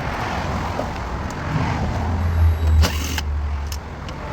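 Low steady rumble of a running vehicle that swells for a second or two, with two sharp clicks near the end from hand tools on the door latch's Torx screws.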